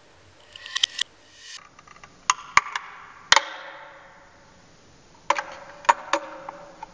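Knife blade prying and striking against a hard drive's glass platter. A couple of light clicks come first, then two groups of three sharp strikes, each leaving the platter ringing briefly.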